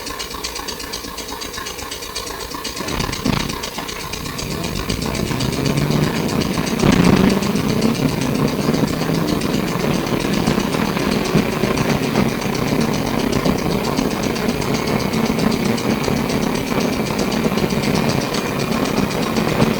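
Melbourne SW5-class tram heard from inside the car as it moves off. A knock comes about three seconds in, then the running noise builds and stays up, with a faint whine slowly rising in pitch as the tram gathers speed.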